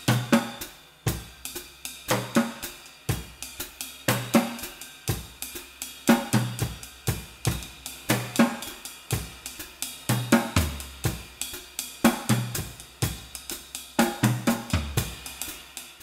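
Background music led by a drum kit playing a steady beat, with a strong hit about once a second and cymbal and hi-hat strokes between.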